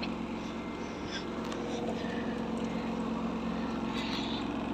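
Samsung washing machine in its spin cycle with an unbalanced load, the drum running with a steady hum and a few light clicks.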